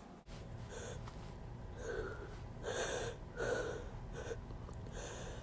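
A person's short, catching in-breaths, about six quick gasps spread over a few seconds, the build-up of an oncoming sneeze.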